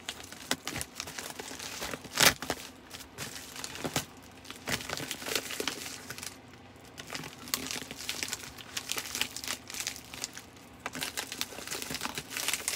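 Padded plastic mailer envelope crinkling and crackling as it is handled and pressed shut, with one sharp, loud crinkle about two seconds in.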